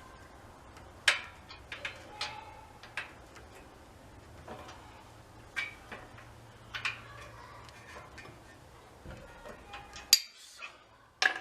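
Irregular sharp metallic clicks and clinks, about a dozen, some with a short ring, as metal tools and parts are handled. The loudest clink comes near the end, followed by a sudden brief silence.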